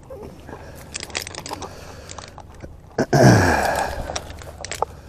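Branches and vines crackling and snapping, with a louder rustling crash of leaves and limbs about three seconds in that dies away over about a second.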